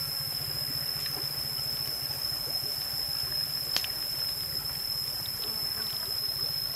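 Soup ladled from a metal wok into a bowl, with one sharp metal clink about midway, over a steady low fluttering hum and a steady high thin tone.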